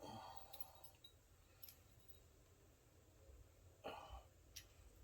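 Near silence, with a soft breath or sigh at the start and again about four seconds in, and a few faint light clicks.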